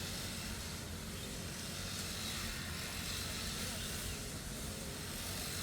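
A grass-cutting machine's engine running steadily, a low, even hum with a hiss over it.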